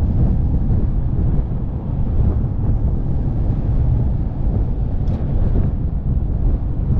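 Wind buffeting the microphone of a moving velomobile: a steady low rumble without let-up.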